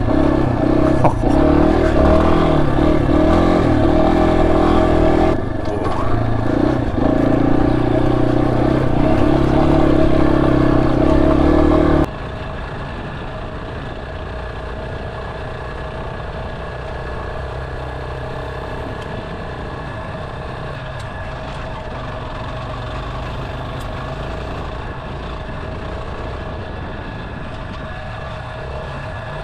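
Yamaha XT250's single-cylinder four-stroke engine running while the bike is ridden, revs rising and falling. About 12 seconds in it drops suddenly to a quieter, steady low-revving engine sound.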